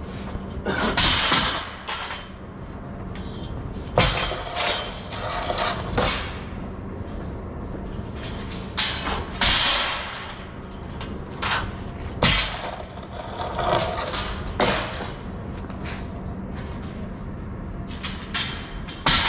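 Steel scaffold parts clanking as they are handled and set down, about ten uneven sharp clangs a few seconds apart over a steady low hum.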